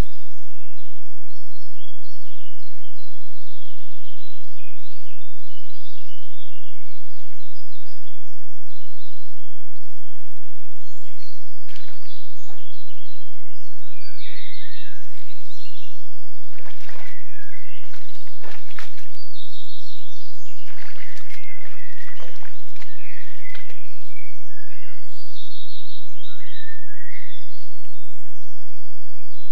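Several small birds singing and chirping, with a cluster of sharp clicks about a third of the way in and a steady low hum underneath.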